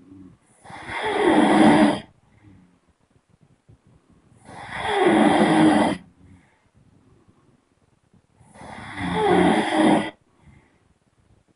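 A person snoring: three long snores, each about a second and a half, spaced about four seconds apart, with quiet breathing gaps between.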